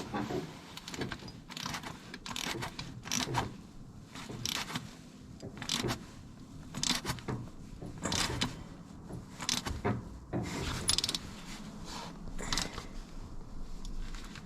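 Irregular metallic clicks and clinks of hand tools as a stud-extractor tool is fitted and tightened onto a broken exhaust manifold stud.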